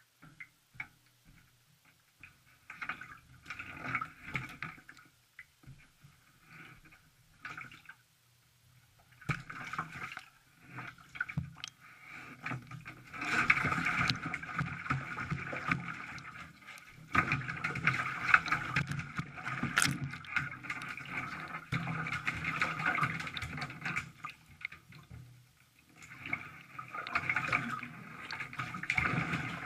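Hands scrubbing a wet cat in shallow bathwater in a bathtub: splashing and sloshing in irregular bursts, short and scattered at first, then busier and louder after the first third or so, with brief pauses.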